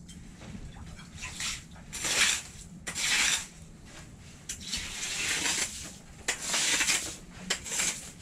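Ice skimmer scooping and scraping in an ice fishing hole, a series of rough scrapes at irregular intervals.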